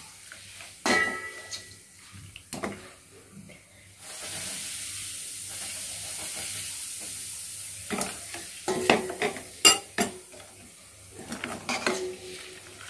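A steel spoon and ladle clinking and scraping against a stainless steel bowl as bark powder is stirred into hot sesame oil. A steady sizzling hiss starts suddenly in the middle and stops a few seconds later.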